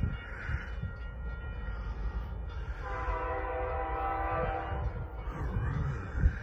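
Locomotive air horn sounding one blast of about two seconds, a chord of several notes, about three seconds in, over the low rumble of a train on the rails.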